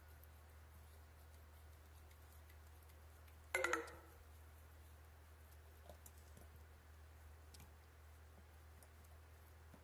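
A boxer gnawing a rubber Kong Widget toy: mostly faint, with a few soft clicks, and one short, loud squeak with a slightly falling pitch about three and a half seconds in. A steady low hum runs underneath.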